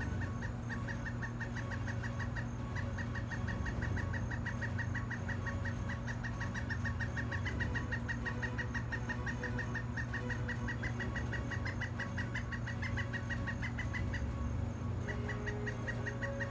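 Woodpecker calling: a long, even series of short, sharp notes at about five a second, breaking off for about a second near the end and then resuming.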